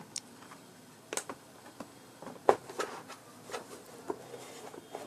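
Irregular clicks and knocks of an induction cooker's plastic housing, control panel and glass top being handled and loosely fitted back together for a test, the loudest knock about halfway through.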